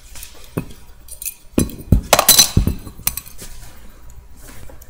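Camera handling noise against clothing: fabric brushing the microphone with a cluster of clinks and knocks, loudest about two seconds in.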